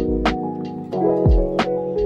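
Instrumental background music with a steady drum beat and sustained chords. The chords change about a second in.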